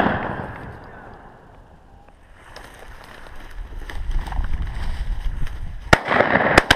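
Shotguns fired at a flushed quail near the end: one shot, then two more in quick succession about half a second later. Before the shots, wind rumbles on the microphone.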